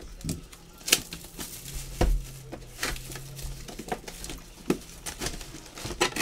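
Scattered light clicks and taps of trading-card boxes and packs being handled on a table, with a few sharper knocks among them.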